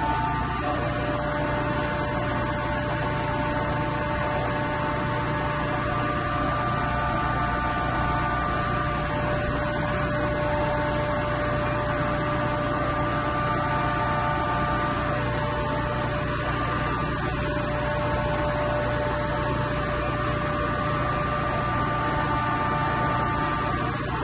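Steady machinery hum in a chiller plant mechanical room, with a few steady whining tones riding over it.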